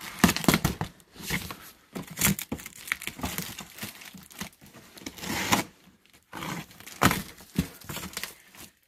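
Box cutter slicing through packing tape and plastic stretch wrap on a large cardboard box, then the cardboard flaps pulled open, crinkling and scraping in irregular strokes.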